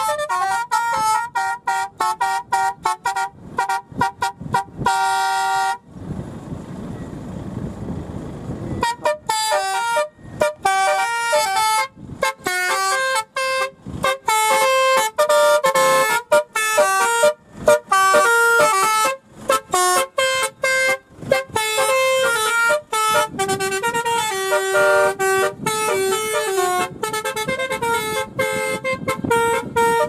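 Multi-tone telolet horn on a Toyota Fortuner playing a fast tune of short horn blasts that jump from pitch to pitch. About six seconds in, it stops for about three seconds, leaving only background noise, and then the tune starts again.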